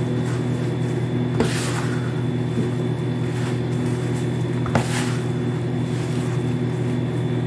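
A steady electrical or appliance hum, the loudest thing throughout, under hands kneading soft bread dough in a plastic basin, with two brief swishing pushes, about a second and a half in and near five seconds.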